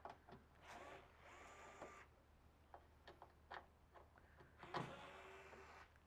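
Faint whirring of a power screwdriver in two short runs, about a second in and again near the end, backing screws out of a microwave's sheet-metal cabinet, with light clicks in between.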